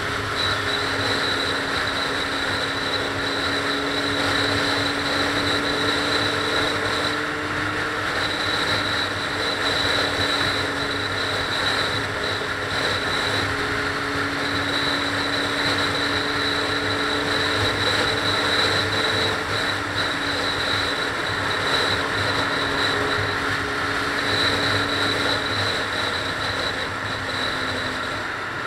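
Car driving at highway speed: steady tyre and engine noise with a low drone, and a faint high whine that comes and goes.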